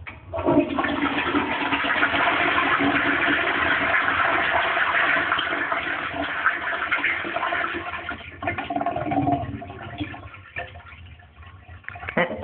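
Toilet flushing: a sudden loud rush of water into the bowl that eases after about eight seconds into a quieter gurgle.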